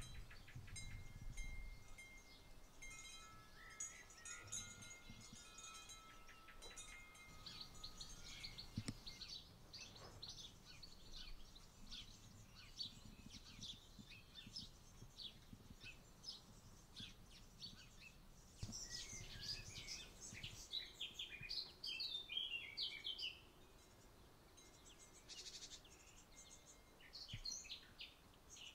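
Small birds singing and chirping, many short high calls with a quick twittering phrase around two-thirds of the way through. During the first several seconds a few held, clear chime-like tones sound at two or three pitches.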